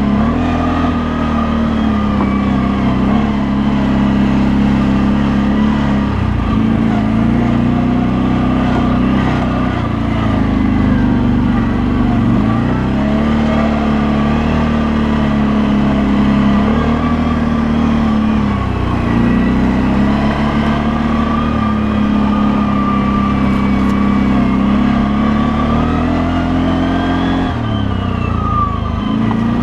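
CFMOTO CForce 800 V2 ATV's V-twin engine running under load, its note dropping and climbing back several times as the throttle is eased off and opened again.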